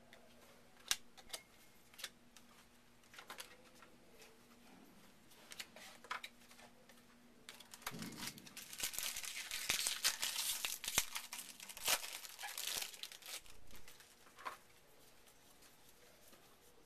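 A trading-card pack wrapper being torn open and crinkled, with light flicks and clicks of cards being handled. Scattered small clicks at first, then a dense stretch of crinkling from about halfway through that dies away a few seconds before the end.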